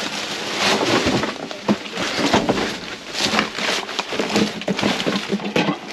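Plastic packages, trash bags and cardboard boxes rustling, crinkling and knocking as they are grabbed and shifted by hand in a dumpster: a busy, uneven stream of crackles and knocks.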